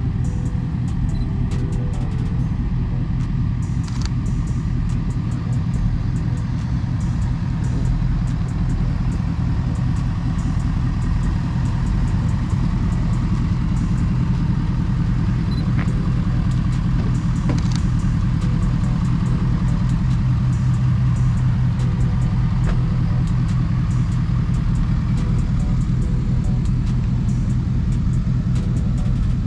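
Deep, steady engine rumble of big pickup trucks rolling slowly past.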